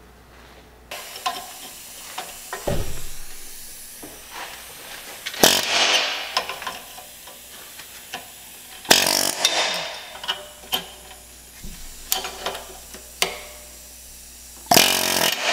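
Steady sizzling hiss of heat on a hot, rusted broken exhaust stud, with three loud metal strikes, about five and nine seconds in and near the end, as the seized stud is hammered loose, and a few small clicks between them.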